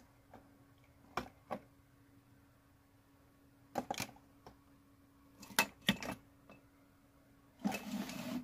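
Small items clicking and knocking against each other as they are handled in a storage basket, in a few separate clusters, then a short rustling scrape near the end. A faint steady hum runs underneath.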